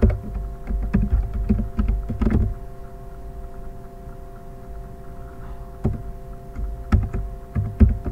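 Irregular knocks, taps and clicks of a recording device being handled while logging back in, loudest in the first couple of seconds and again near the end, over a steady hum.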